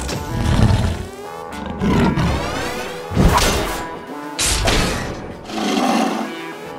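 Dramatic soundtrack music layered with sound effects for a robot dinosaur toy: a roar, low hits and sweeping whooshes, one every second or so.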